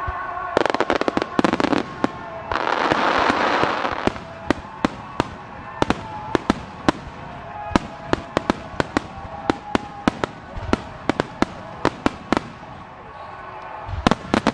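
Starmine fireworks display: aerial shells bursting in quick succession, sharp bangs coming several a second. A dense crackling volley comes about a second in, then a loud rushing hiss of about a second and a half.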